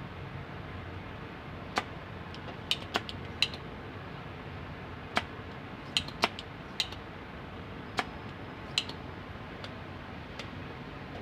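About a dozen sharp clicks and taps at irregular intervals, from handling a soldering iron and a spring-loaded desoldering pump on a circuit board while desoldering a resistor, over steady low background noise.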